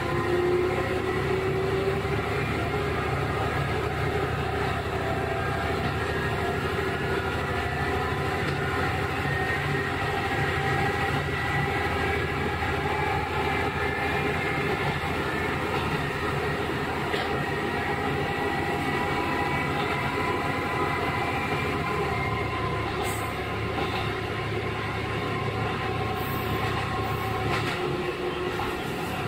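KiHa 11 diesel railcar with its Cummins engine running under way, heard from on board: a steady engine drone and whine mixed with wheel-on-rail noise. The pitch climbs slightly over the first ten seconds or so, then holds steady, with a few faint ticks near the end.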